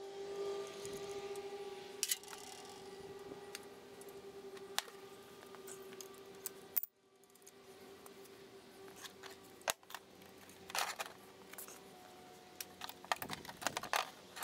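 Faint, scattered light metallic clinks and taps from hand work on a small engine, over a steady low hum.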